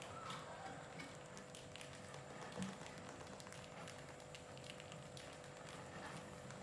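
Rats' claws scratching and pattering on wooden ramps and a plastic bucket rim: faint, irregular little clicks, with one louder thump about two and a half seconds in.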